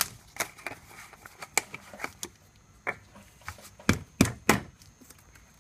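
Irregular clicks and knocks of hands working at the engine's oil filler, opening the filler cap and the oil bottle, with three louder knocks close together about four seconds in.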